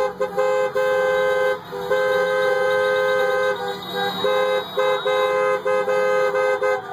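Car horns honking over and over in celebration, long blasts mixed with short toots.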